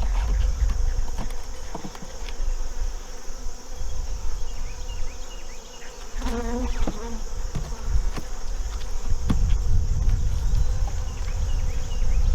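Honey bees buzzing around an open hive, unsettled by the inspection. About six seconds in, one bee flies close past with a wavering pitch. A low rumble and a few light clicks run underneath.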